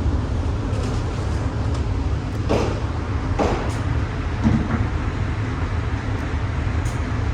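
Motorized target carrier running steadily along its overhead track, a low even rumble as it brings the paper target back to the shooting booth. A few muffled thumps, typical of shots from other lanes, come through it.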